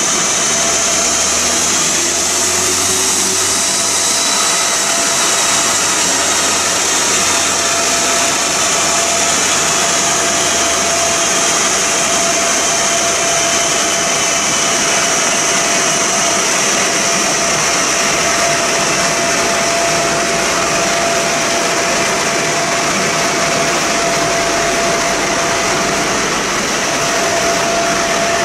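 Loud, steady whooshing roar of a chassis dynamometer cell, the dyno's cooling fan and rollers running, with a faint steady whine; no rising rev sweep of a full-throttle pull.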